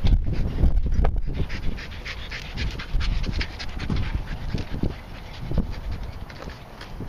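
German Shepherd detection dog panting quickly and steadily, short breaths in rapid succession, as it works a scent search.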